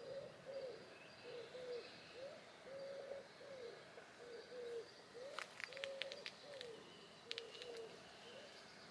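A dove or pigeon cooing: a steady run of short, low coos, some level, some bending up or down in pitch. About halfway through, and again a little later, a quick cluster of sharp clicks or chirps cuts in.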